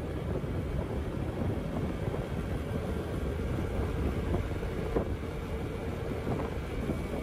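Steady low rumble of a vehicle on the move, with wind noise on the microphone.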